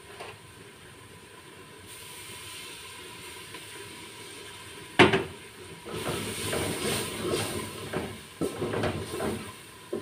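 Onion and spice masala sizzling in a metal pot over a gas flame, a steady hiss. About five seconds in a spoon knocks against the pot, then it scrapes and stirs the masala with many small, uneven strokes.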